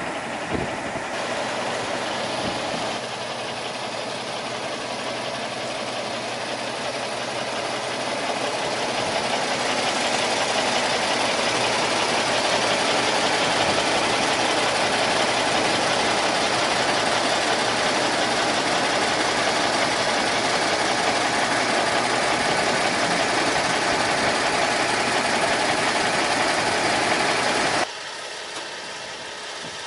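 Kenworth cabover truck's diesel engine idling steadily, heard up close behind the cab. It grows louder partway through and drops suddenly near the end.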